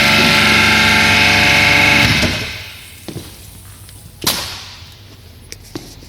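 Pressure washer running with a steady whistle from its VRT-3 unloader regulator valve, a pitched tone with many overtones: the regulator whistle fault. The whistle dies away about two seconds in, followed by a few light clicks and one sharper knock.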